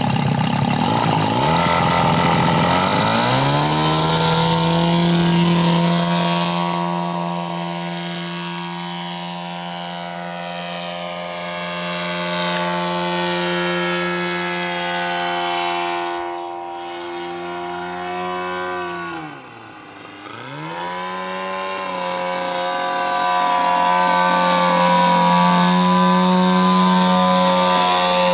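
Engine and propeller of a 4-metre radio-controlled An-2 model biplane. The engine climbs in pitch a couple of seconds in as it is throttled up for takeoff, then runs steadily. About two-thirds of the way through, its pitch drops sharply and comes straight back up, and it runs steadily again.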